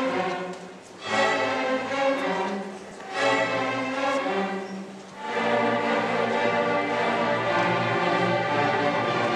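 Large string orchestra of violins and cellos playing a Celtic fiddle tune in full chords: three short swelling phrases, then a longer unbroken passage from about five seconds in.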